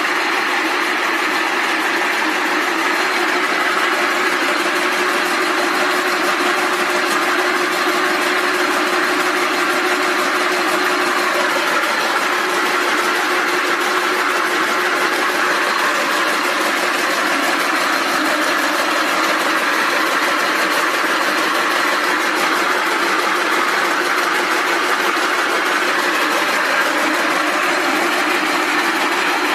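Rope braiding machine running steadily: an even, dense mechanical noise with a faint steady hum.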